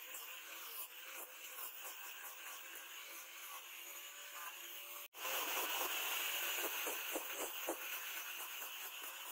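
Power sander's spinning sanding disc rubbing on a wooden knife handle, giving a steady abrasive hiss. It cuts out for an instant about five seconds in and comes back louder, with a few short rasps near the end.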